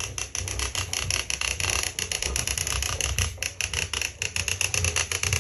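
Radio Flyer Classic Walker Wagon rolling on a wooden floor as it is pushed, its wheels making a fast, even clicking rattle of about eight to ten clicks a second over a low rumble.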